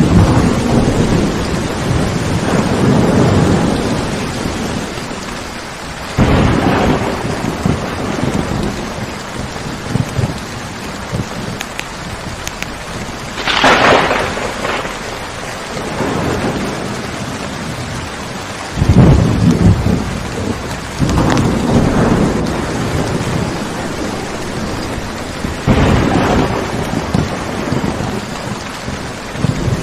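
Steady rainfall with rolls of thunder every several seconds, one sharper, brighter clap about halfway through.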